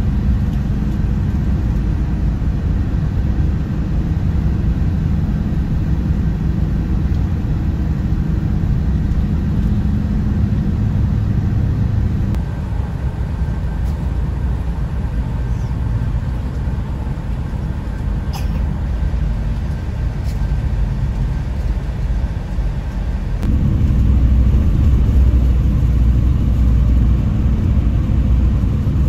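Bus engine and road noise: a steady low rumble that changes abruptly twice, dropping about twelve seconds in and coming back louder near the end.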